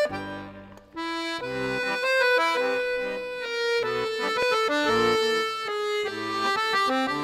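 Background music, a melody of held notes, dipping briefly near the start before picking up again about a second in.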